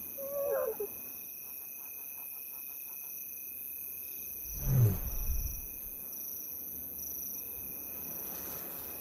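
Lion soft contact calls: a short wavering higher call near the start and a louder, low falling call about five seconds in. Crickets chirr steadily throughout.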